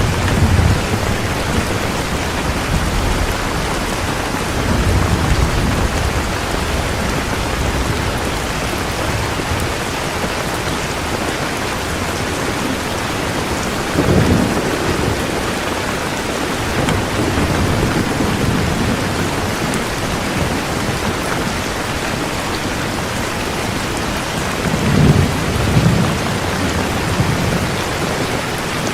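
Heavy rain falling steadily, with low rolls of thunder rumbling several times: one right at the start, others around a third and halfway through, and the strongest near the end.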